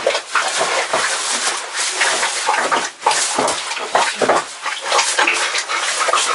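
Pigs in a barn grunting and squealing in irregular bursts, over rough rustling and splashing of feed or water.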